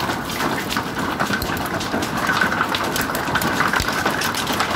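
Heavy rain mixed with hail pelting down: a dense, steady patter thick with sharp little ticks of ice striking surfaces.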